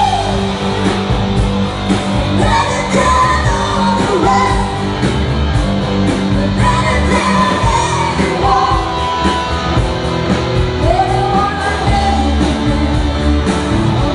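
A live rock band playing, with a woman singing the lead vocal through a microphone over electric guitar, bass and drums.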